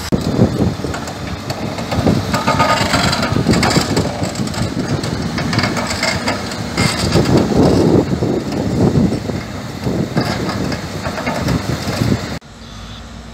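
Crawler drilling rig working: its engine runs under loud, irregular crunching and grinding. The sound drops away abruptly near the end.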